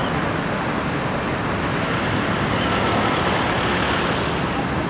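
Steady road traffic noise: a continuous hum of passing vehicles, with a faint thin high whine over it.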